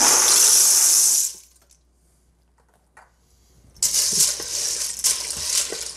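Dry pasta shells pouring from a cardboard box into a stainless steel pot of broth: a rush of rattling for a little over a second. After a pause, the shells rustle and clatter again as a hand pushes them around in the pot.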